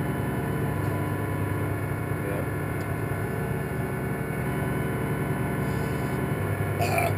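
A steady mechanical hum, even in level throughout, with a brief voice-like sound near the end.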